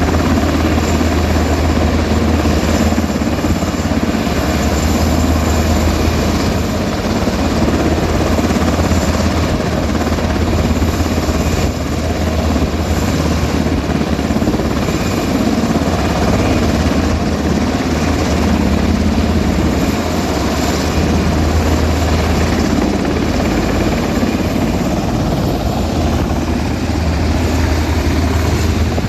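Rescue helicopter running close by: a loud, steady rotor and engine noise with a strong low hum, unbroken throughout.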